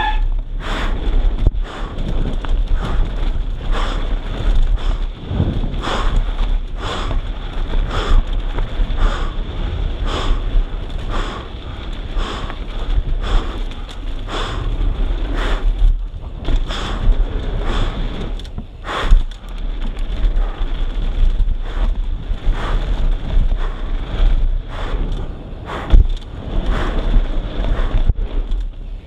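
Wind buffeting the camera microphone as a downhill mountain bike descends a rough trail, with the bike rattling and knocking over bumps throughout. Two harder thumps stand out, about two-thirds of the way in and near the end.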